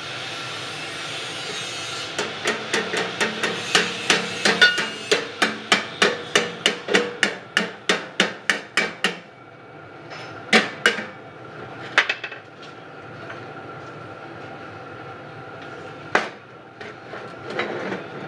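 Hammer blows on a rolled sheet-metal muffler shell: a fast, even run of about three or four blows a second for some seven seconds, starting about two seconds in, then a few single blows. A steady hum sits underneath.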